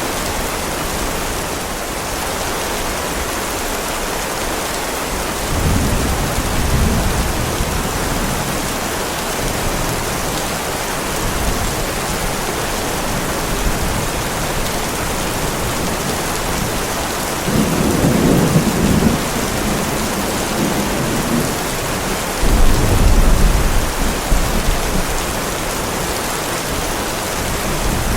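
Heavy rain falling steadily, with rolls of thunder rumbling up three times: around 6 seconds in, around 18 seconds, and loudest around 23 seconds.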